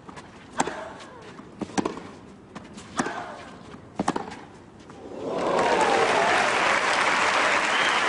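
A tennis rally: the ball is struck by rackets four times, about a second apart. Near the middle, loud crowd applause starts and carries on as the point ends.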